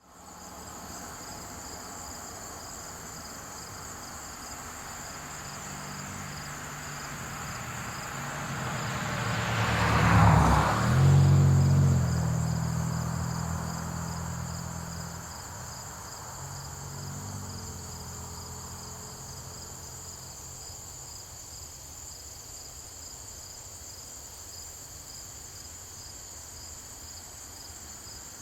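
Crickets chirring steadily in two high bands while a car approaches and passes, loudest about ten seconds in, its engine hum fading away over the next few seconds; a fainter engine hum rises briefly a little later.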